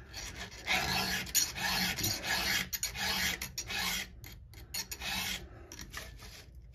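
Round chainsaw file rasping across a cutter tooth of a saw chain in a series of hand strokes, about one every three-quarters of a second, getting lighter near the end. The strokes are sharpening and reshaping the tooth.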